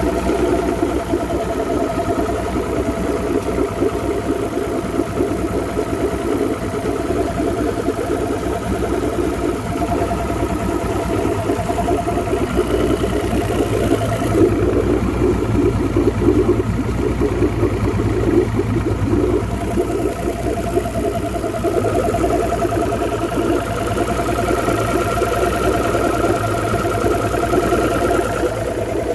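Mercury 250 ProXS Optimax V6 two-stroke direct-injection outboard idling steadily. It runs smoothly with no clunking, the knock from torn fuel and air regulators cured by a new factory-tuned fuel rail.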